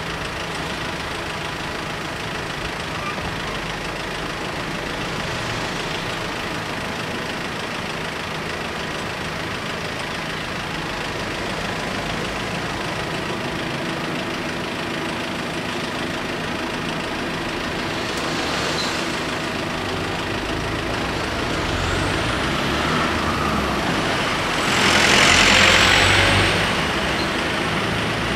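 Road vehicles idling, waiting at a closed railway level crossing: a steady engine hum that swells slightly. About 25 s in comes a brief louder burst of noise with a falling whistle.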